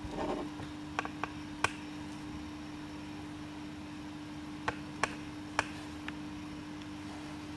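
A steady hum with a handful of sharp, isolated clicks: a brief rustle at the start, three clicks about a second in, and four more shortly after the middle.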